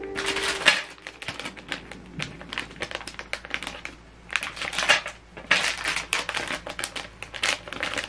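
Clear plastic packaging bags crinkling and rustling as they are handled and shuffled, with irregular light taps and clicks.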